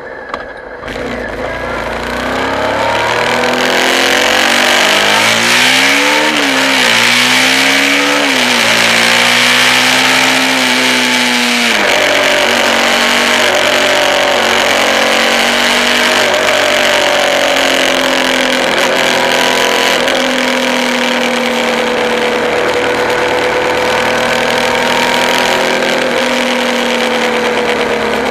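Vehicle engine pulling up through the gears, its pitch climbing and dropping with each shift, then settling to a steady cruise, over loud wind and road noise. A brief knock comes about a second in.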